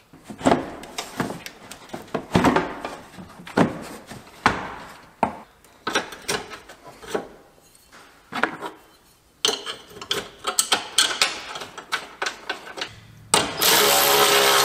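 Irregular clicks, knocks and plastic rattles as the retaining pieces of a pickup's radiator are pried off and handled. Near the end a cordless ratchet starts running steadily on a radiator support bolt.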